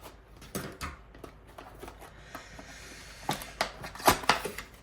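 Beyblade X retail packaging being opened by hand: irregular crackles, rustles and clicks of plastic and cardboard, with a soft hiss about two seconds in and the loudest crackles near the end.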